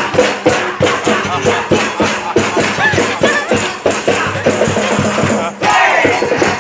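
A pair of strapped-on hand drums beaten in a fast, steady rhythm, with a rattling shaker-type percussion going along, for a restaurant staff's birthday performance.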